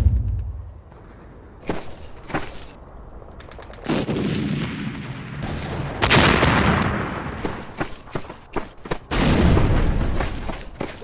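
Battlefield sound effects: scattered gunshots, then a swelling rush into a heavy shell explosion about six seconds in, a second blast near nine seconds, and a quick run of rifle and machine-gun shots near the end.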